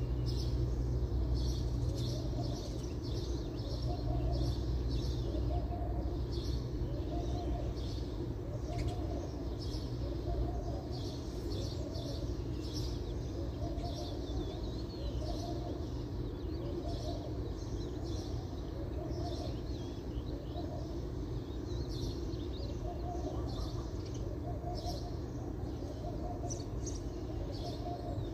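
Small birds chirping, with a dove cooing in repeated rounds of soft notes about a second apart, over a low rumble that eases about ten seconds in.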